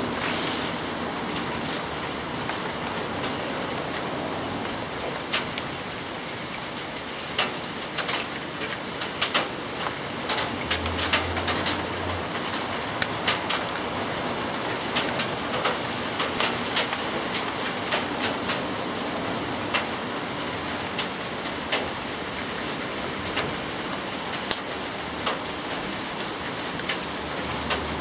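Steady rain falling, with a patter of sharp, irregular drips on leaves that grows thicker in the middle.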